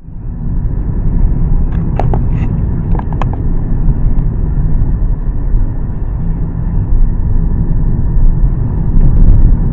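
Steady low road and engine rumble inside a moving car, with a few short clicks about two to three seconds in.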